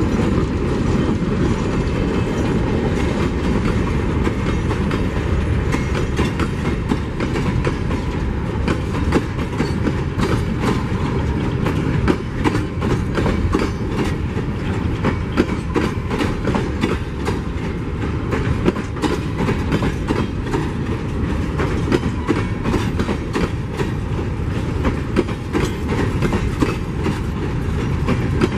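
Empty steel mineral hopper wagons of a long freight train rolling past: a steady rumble of wheels on rail, with frequent clicks as the wheels cross the rail joints.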